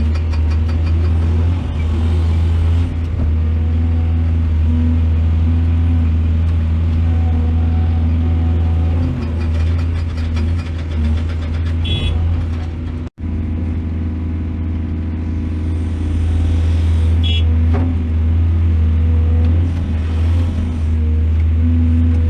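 Large mining excavator's diesel engine running steadily with a deep, even drone. Two short high-pitched squeaks come through, one just past halfway and one a few seconds later, and the sound drops out for an instant between them.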